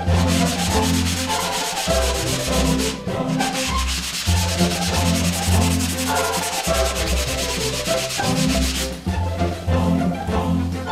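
Hand block sanding of Bondo body filler on a car's rear quarter panel to level it for primer. A sanding block with sandpaper is rubbed back and forth in quick, scratchy strokes, which lighten about nine seconds in.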